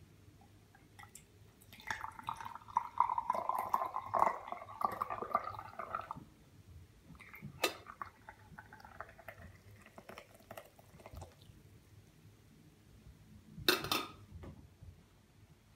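Tea poured from a stainless steel Turkish double teapot into a tulip-shaped tea glass. First comes a few seconds of trickling, splashing pour of brewed tea, edging higher in pitch as the glass fills. A fainter pour of hot water follows. A sharp click comes midway, and a louder clink of metal or glass near the end.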